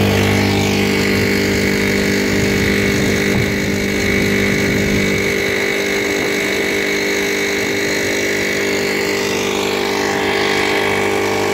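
Small outboard motor on a small boat running at a steady speed, an even engine drone that holds its pitch throughout.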